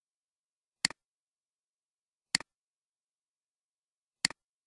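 Three computer mouse clicks, each a sharp press followed at once by a softer release tick, spaced about one and a half to two seconds apart with silence between.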